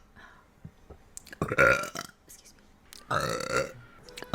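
A young woman burping twice, the first about a second and a half in and the second about three seconds in, each lasting about half a second.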